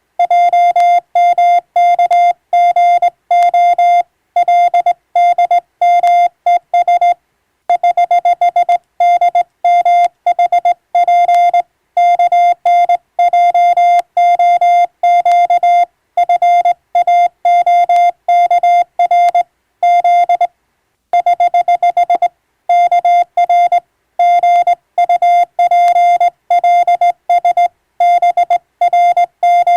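Morse code (CW) tone: one steady pitch keyed rapidly in short and long beeps, dots and dashes at practice sending speed. There are brief pauses between groups about 7 and 20 seconds in.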